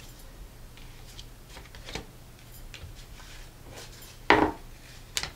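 Tarot cards being laid down and shuffled about on a cloth-covered table: a few soft taps and rustles, with a louder slap of cards about four seconds in and another sharp tap just after five.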